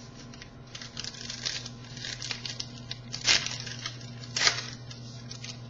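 Trading cards being handled: irregular rustling and sliding of cards and wrapper, with two sharper swishes, about three and four and a half seconds in, over a steady low hum.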